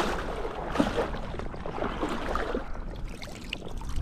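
Water splashing and lapping as a retriever swims in through choppy water with a retrieved duck, with many small splashes over a steady wind rumble on the microphone.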